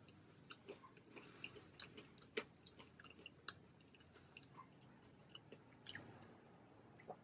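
Faint chewing of crispy thin-crust pizza: a scattering of small crunches and clicks, the loudest about two and a half seconds in and again around six seconds.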